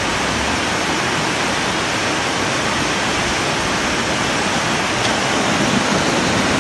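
Muddy floodwater rushing in a torrent down a steep street, a steady, unbroken rushing of water.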